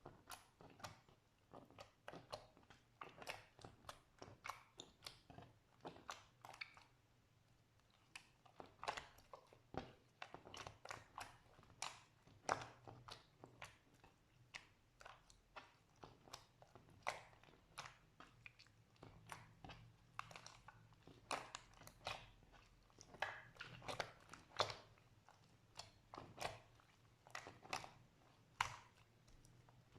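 Slime being squeezed and kneaded by hand, giving a run of sticky clicks and small pops a few times a second, with a short pause about seven seconds in.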